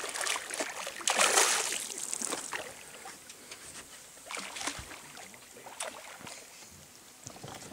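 A hooked barramundi thrashing at the water's surface beside a boat as it is netted, with a loud splash about a second in. Smaller splashes and light knocks follow.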